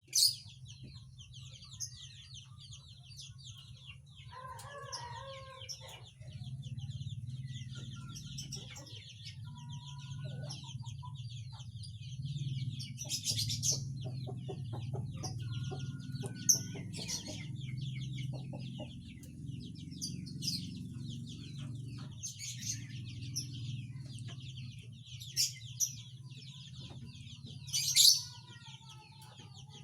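Male lovebird in breeding condition chattering in a rapid, continuous twitter, broken by a few loud shrill squawks, the loudest near the end. A steady low hum runs underneath.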